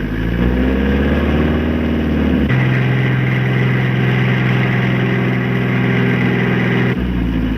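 Motor vehicle engine running on an old film soundtrack, rising in pitch over the first couple of seconds. The engine sound changes abruptly to a different steady note about two and a half seconds in, and again near the end.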